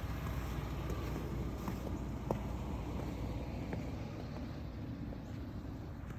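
Steady low rumble of a motor vehicle, with a few faint clicks.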